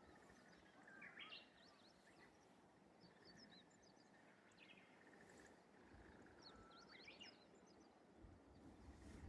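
A Japanese bush warbler (uguisu) sings its 'hoo-hokekyo' song twice, each a held whistled note breaking into a quick rising flourish, about a second in and again near seven seconds. Other small birds chirp faintly and high-pitched in between, over a quiet rural background.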